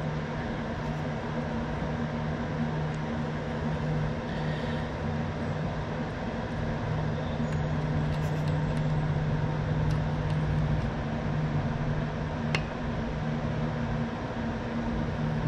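A steady low machine hum, with one faint sharp click near the end.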